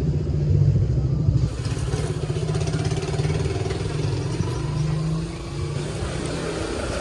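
Street traffic: motorcycle and car engines running and revving, with an abrupt change in the sound about one and a half seconds in.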